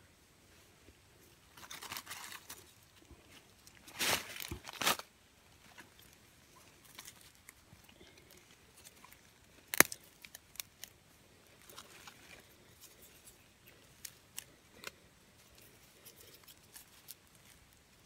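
Dry leaf litter and thin sticks rustling and crunching under hands as a stick trap is set into the forest floor, in two bursts, the louder about four to five seconds in. A single sharp click near the middle, then scattered light ticks of twigs being handled.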